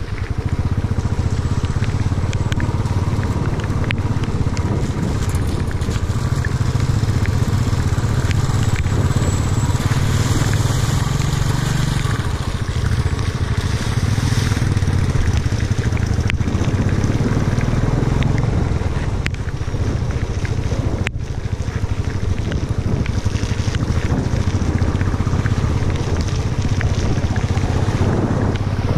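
Motorcycle engine running steadily at trail speed, heard from on the bike, with wind buffeting the microphone and scattered clicks and crunches from the tyres on loose stones and wet gravel.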